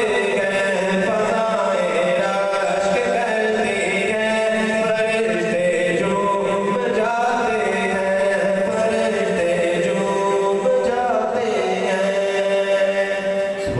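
A man chanting a naat unaccompanied, drawing out long melodic phrases that glide between notes, over a steady low hum.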